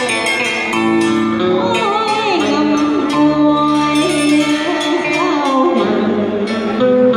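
A woman singing a cải lương vocal excerpt with sliding, wavering notes, accompanied by an electric guitar.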